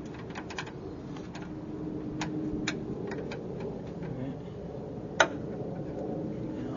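Small metallic clicks and taps as the ball-socket ends of a gas-strut hood damper are handled and pressed onto ball studs, with one sharp, loud click a little past five seconds in. A faint steady hum runs underneath.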